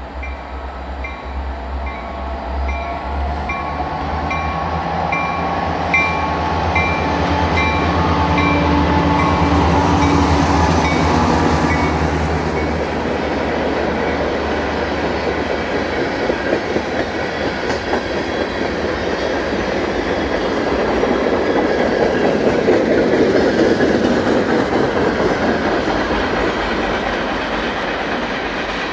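Diesel locomotives passing with a bell dinging about one and a half times a second and a low engine hum. About halfway through the engines fade and the railcars roll by with wheel clatter, growing louder again near the end.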